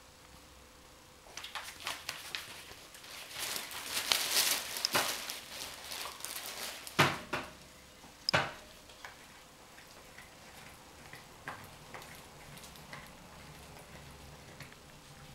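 Coton de Tulear puppies scuffling and playing in a wire pen: several seconds of rustling and scratching with small clicks, then two sharp clicks about a second and a half apart, then only scattered light ticks.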